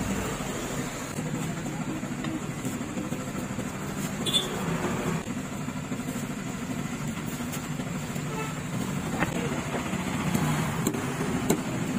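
Busy market background: a steady low motor hum with voices in the background, and a few sharp clicks of a knife on a wooden chopping block, mostly near the end.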